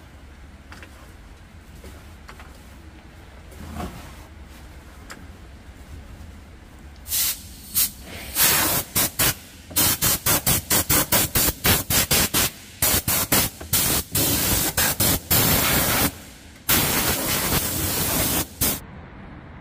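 Repeated short bursts of hissing spray, switched on and off many times in quick succession, starting about seven seconds in and stopping just before the end, over a low steady hum.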